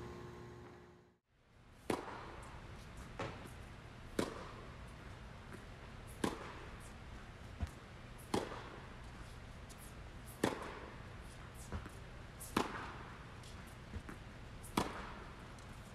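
Tennis balls struck with a racket in forehand groundstrokes off a ball machine. The sound fades briefly to silence about a second in, then a sharp pop comes about every two seconds, ringing on in an indoor court hall, with fainter knocks in between.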